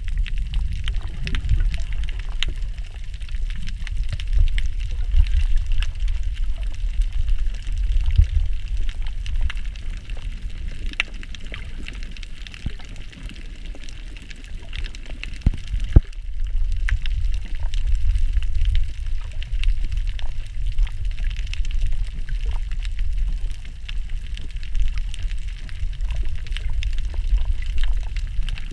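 Underwater sound picked up by a camera in a waterproof housing: a churning low rumble of water moving around the housing, with a faint hiss and a scattered crackle of small clicks. The rumble dies down for a few seconds near the middle, a single sharp click comes about sixteen seconds in, and then the rumble returns.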